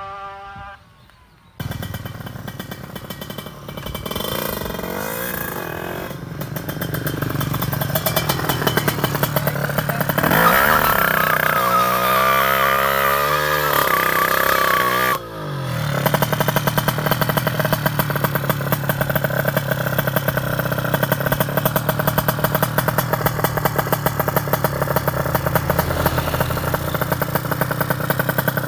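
Two-stroke single-cylinder engine of a Kawasaki Ninja 150 drag bike, bored out to 155 cc, running. It builds up, is revved higher for several seconds about ten seconds in, and drops back abruptly. It then runs on steadily with a rapid, even crackle.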